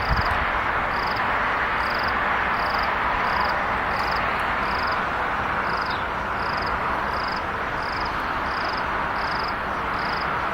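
A cricket chirping steadily, about two short chirps a second, over a constant hiss of background insects.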